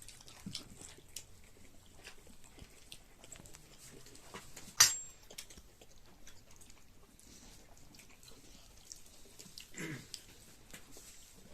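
Close-up eating sounds of someone chewing and biting into cooked chicken, with small wet mouth clicks throughout. One sharp, loud click comes about five seconds in, and a short grunt-like mouth sound near the end.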